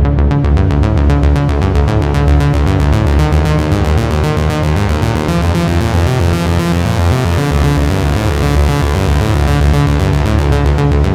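Behringer Crave analog synthesizer playing a step-sequenced electronic riff: a fast, even run of short repeating notes over a steady low bass line.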